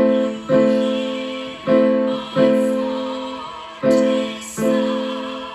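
Piano or keyboard playing a slow melody: six notes struck in pairs about half a second apart, each ringing on and fading before the next pair.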